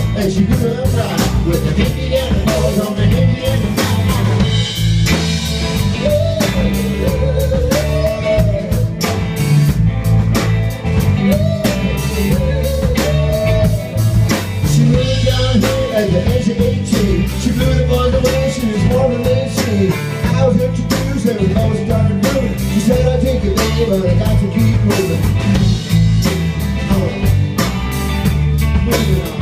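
A live band playing a song: singing over two electric guitars, an electric bass and a drum kit, with steady drumbeats throughout.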